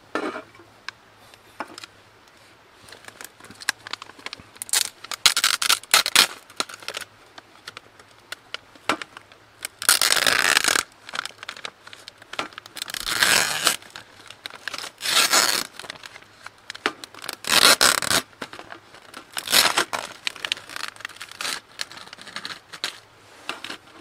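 A plastic snack wrapper being torn open and crinkled in the hands, in a series of rustling bursts with short pauses between them.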